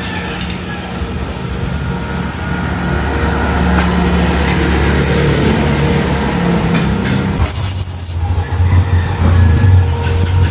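A heavy engine or motor running steadily with a low hum, growing louder in the last few seconds, with a brief hiss or clatter about seven seconds in.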